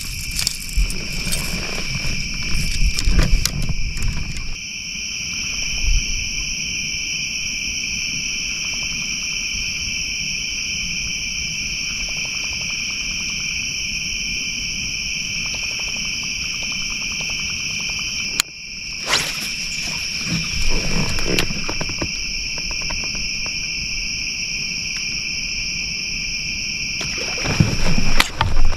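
Steady high-pitched chorus of night insects, crickets, ringing on two pitches without a break. Knocks and rustles of handling in the boat come in the first few seconds, around twenty seconds in, and loudest near the end.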